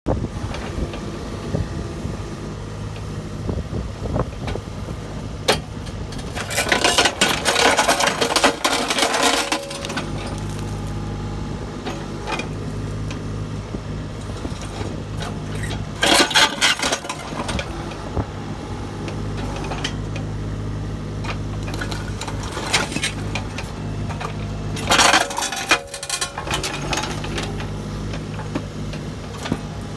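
A mini digger's engine running steadily, with three spells of loud crunching and cracking as the hydraulic pulveriser's jaws crush concrete: a long one about seven seconds in, and shorter ones around sixteen and twenty-five seconds in.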